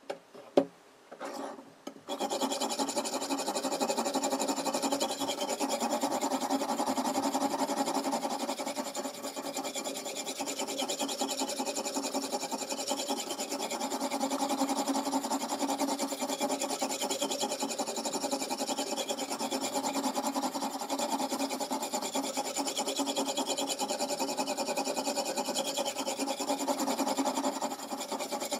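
Oil whetstone on a guided knife sharpener rubbing back and forth along a steel kitchen-knife edge: a continuous rasp that swells and eases with the strokes. A few sharp knocks come in the first two seconds, before the stroking starts.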